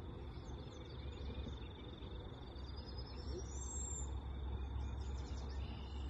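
Outdoor ambience with wind rumbling on the microphone, a steady high-pitched trill throughout, and a thin bird call rising in pitch about three seconds in.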